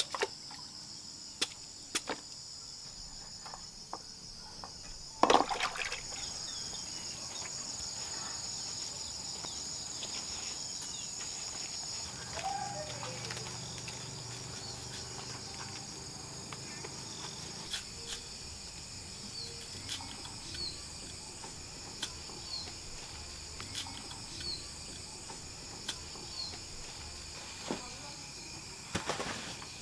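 A steady, high-pitched chorus of insects. A few sharp machete chops come near the start and a loud knock about five seconds in. Later, light clicks come at uneven intervals, roughly once a second.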